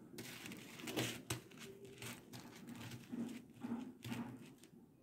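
Fingers handling strands of tube-shaped coral beads on fishing line: scattered light clicks of beads knocking together, with soft rustling. The sharpest clicks come about a second in.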